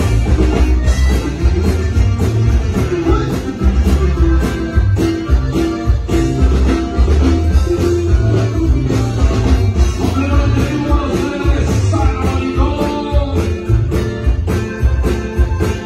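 Norteño band playing live through the stage PA: accordion and bajo sexto over a steady bass and drum beat, with some singing.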